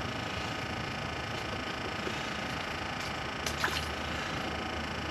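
Sunfish on an ice rod being reeled up and pulled out of the ice hole, with a short burst of clicks about three and a half seconds in, over a steady electric hum.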